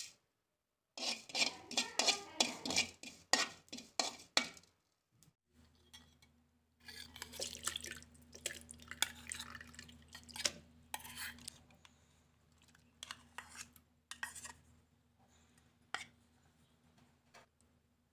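A metal spoon scraping and clinking against a steel pan in a quick run of sharp strikes, then softer clinks of steel kitchen vessels being handled over a steady low hum.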